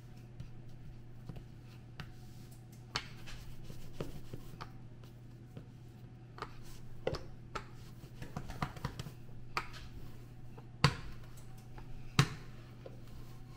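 Irregular knocks and clicks of kitchen work with utensils on a countertop over a steady low hum, with two sharper knocks near the end.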